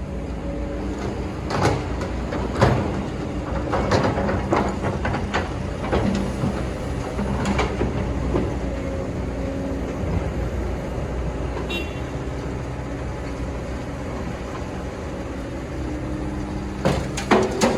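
Excavator's diesel engine running steadily, with scattered knocks and clanks from the machine's bucket and arm. Near the end a run of crunching and clattering sets in.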